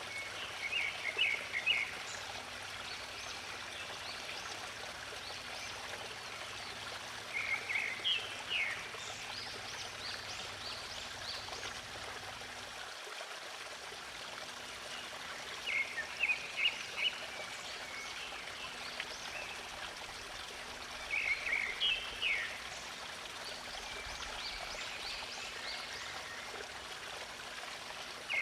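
Steady rush of a stream's running water, with a songbird giving a short burst of quick chirps four times, several seconds apart.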